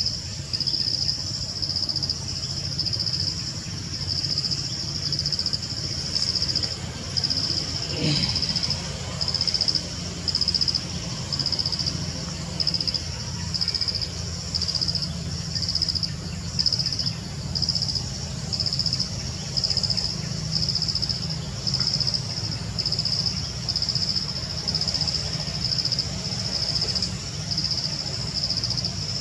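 Forest insects calling in a high, pulsing chorus, with the pulses repeating about once a second.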